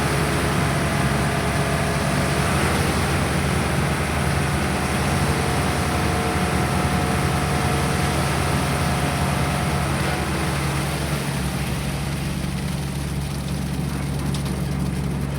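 Engine of a concrete mixer running steadily during a pile pour, a constant low hum with a few higher whining tones that fade out about two-thirds of the way through.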